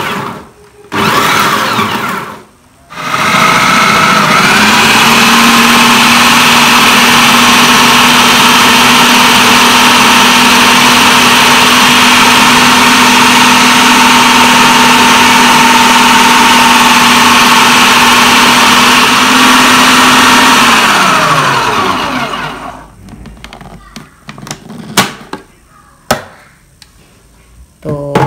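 Idealife IL-222 electric food processor chopping fresh chilies and shallots. Two short pulses, then a long steady run with a motor whine that rises a little as it gets up to speed. About 21 seconds in it winds down with falling pitch, followed by a few clicks.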